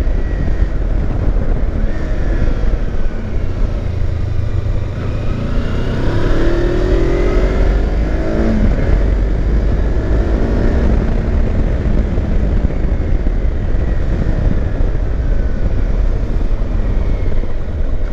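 Kawasaki Versys X300's parallel-twin engine running as the motorcycle is ridden, under a steady low rumble. The revs rise for a couple of seconds about five seconds in, then drop.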